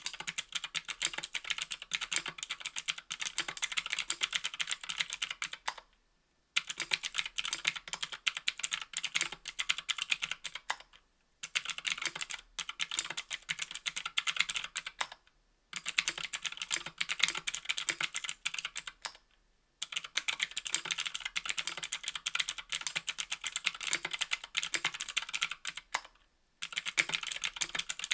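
Fast typing on a 60% aluminium-cased mechanical keyboard with Gateron Green clicky switches on an aluminium plate and GMK keycaps: a dense stream of sharp clicks, broken by brief pauses every four to six seconds.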